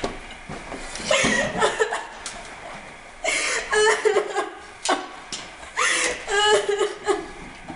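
Children giggling in three bursts, with quieter gaps between.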